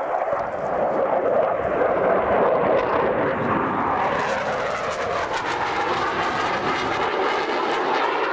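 JASDF F-15 fighter's twin Pratt & Whitney F100 turbofan engines during a display pass, a loud steady jet rush whose pitch bends and shifts around the middle as the jet goes by close.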